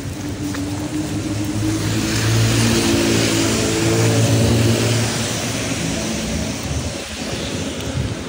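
A car passing by on a wet street: its engine hum and the hiss of tyres on the wet road swell for a few seconds, then fade away.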